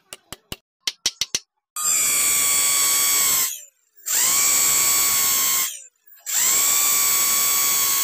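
Hand-held electric drill boring into a wooden plank in three runs of about two seconds each; each run spins up quickly to a steady high whine, then stops. Before the first run comes a quick series of about eight sharp clicks.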